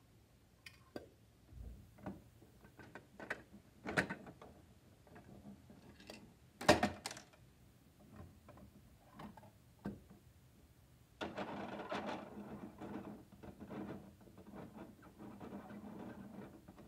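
Plastic clicks and knocks of a Bruder toy garbage truck's side-loader arm being worked by hand to lift a toy bin, with one sharp knock about seven seconds in. Near the end, a steady plastic rattling of the arm's gearing for about five seconds as it is cranked back down.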